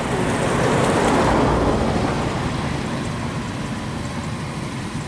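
Kubota DC93 rice combine harvester running steadily, swelling louder about a second in and then easing back.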